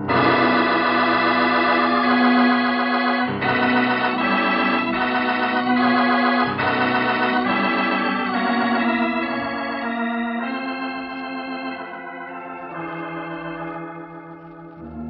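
Organ music bridge in a radio drama: loud held chords with a wavering tone, starting suddenly and moving from chord to chord every second or so, then softening over the last few seconds.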